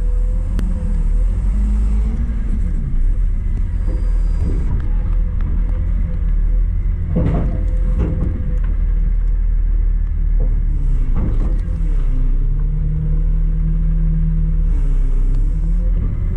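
Front-load garbage truck's engine running with a loud, steady low rumble, heard from inside the hopper. A few clanks and rattles of the body come about seven and eleven seconds in.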